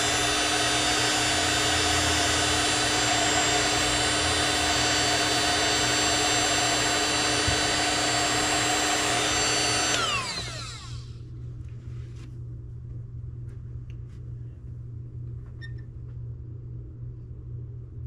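Electric heat gun running, its fan motor whining steadily under rushing air as it blows hot air onto a solder-seal wire connector. About ten seconds in it is switched off and spins down. Afterwards only faint handling clicks remain.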